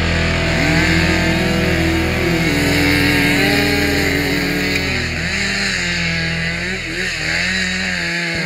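Loud rock music with distorted electric guitar and bending melody lines. The deep low end drops out near the end.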